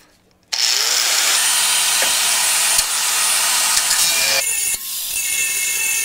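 Corded angle grinder with a cutoff wheel cutting through a corroded steel exhaust hanger, starting about half a second in. About four seconds in the sound shifts to a slightly quieter cut with a steady high ring in it.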